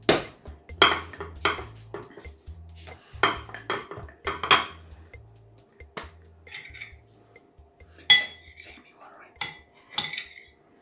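Hands slapping and pressing a ball of bakpao (steamed bun) dough flat on a wooden worktop: sharp knocks and slaps in several short clusters.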